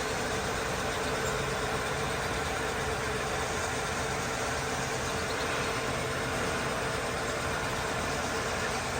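Car engine idling steadily, with an even hum.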